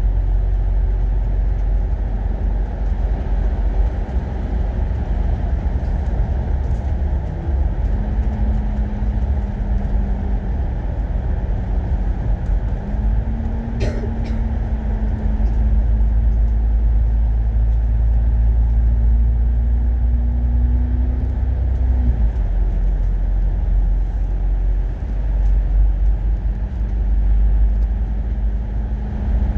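Euro 6 MAN bus running on the road, heard from on board: a steady low engine and road rumble with a steady whine that rises a little about eight seconds in and drops away about twenty-two seconds in. A single sharp click about fourteen seconds in.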